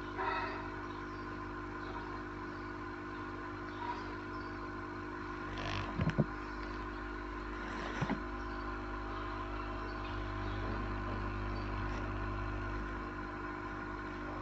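A steady background hum made of several level tones, with a few short clicks or knocks about six and eight seconds in.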